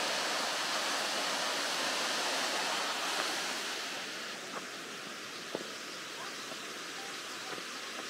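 Steady rushing of a waterfall, which drops to a lower level about halfway through.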